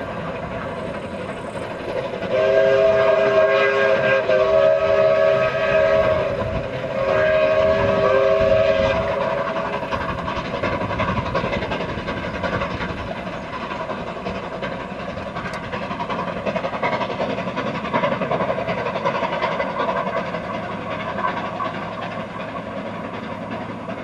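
Steam locomotive whistle sounding several notes at once in long blasts, from about two to nine seconds in. Under it and after it runs the steady noise of a double-headed steam train working along the line.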